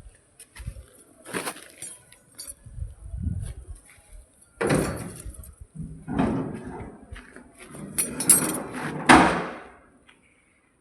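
A series of irregular knocks and scraping clatters, several of them lasting up to about a second, the loudest near the end.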